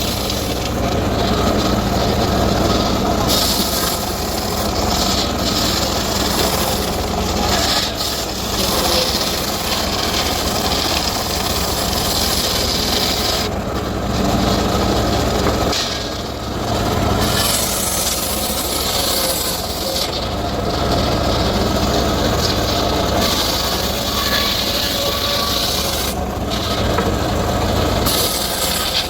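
Circular saw cutting teak wood: a loud, continuous rasping whir over a steady low drone, its high hiss dipping away now and then.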